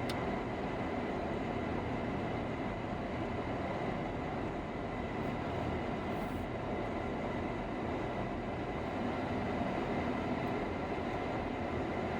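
Steady in-cabin rumble of a minivan driving slowly, engine and road noise with no change in pace.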